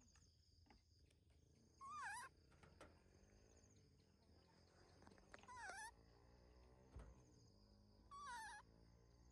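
Baby macaque calling three times, short high-pitched cries a few seconds apart, each dipping and rising in pitch.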